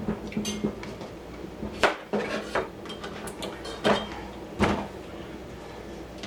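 Kitchen knife trimming the ends off pickling cucumbers, the blade knocking sharply against the cutting board a few times, a second or two apart.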